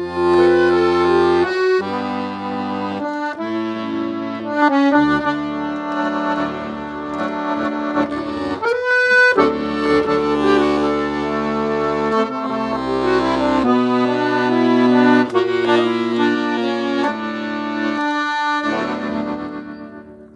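Piano accordion played solo: a melody on the treble keys over sustained chords and bass from the left-hand buttons, the final notes dying away near the end.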